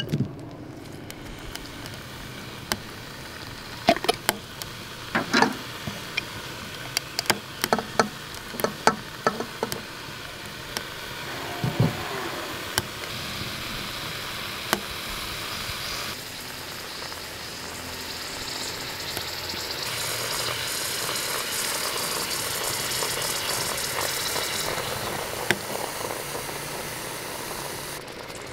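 Clinks and knocks of glass jars and spoons as spices and salt are added to a pressure cooker, followed by a steady hiss that swells in the middle and fades near the end.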